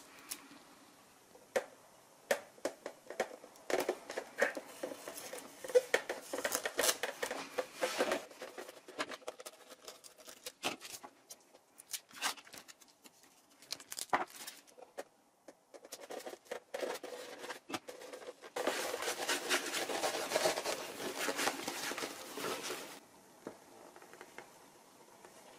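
Handling noise from hands working on a foam flying wing: scattered clicks, taps and crinkling of its clear-taped surface, with a few seconds of steady rustling about three-quarters of the way through.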